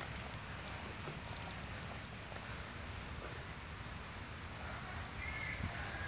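Quiet rural outdoor background: a steady low rumble with faint scattered ticks, and a brief bird chirp about five seconds in.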